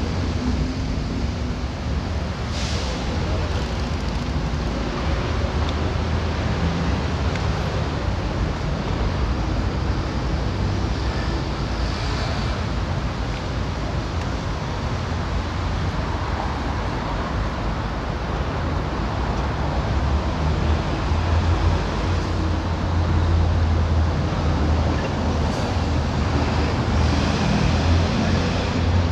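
Steady street traffic noise from a busy city avenue, cars passing with a low engine rumble. Over the last several seconds the rumble grows louder as a city bus passes close by.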